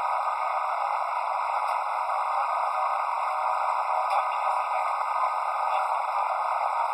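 Steady rushing noise of a moving boat (engine, wind and water together), with no bass and no distinct sounds standing out.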